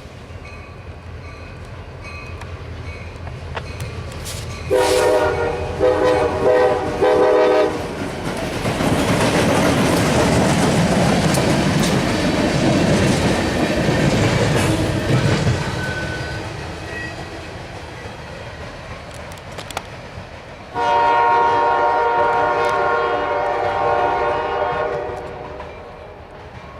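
CSX diesel locomotive's air horn sounding several notes at once, in about four short blasts, followed by the rumble of the locomotive and cars rolling past with wheels clicking over the rail joints. Near the end the horn gives one long blast of about four seconds.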